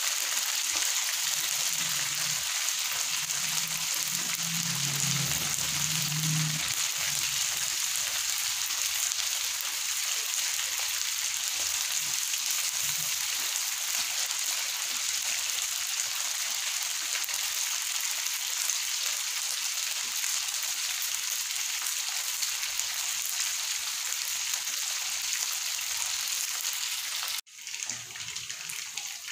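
Battered chicken pieces deep-frying in a pan of hot oil: a steady sizzle as the oil bubbles hard around them. Near the end the sound cuts off abruptly and comes back quieter.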